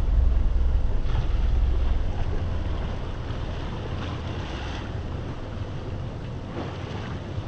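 Wind rumbling on the microphone aboard a sailing yacht, with a hiss of water along the hull. The gusting is strongest for the first two seconds or so, then eases.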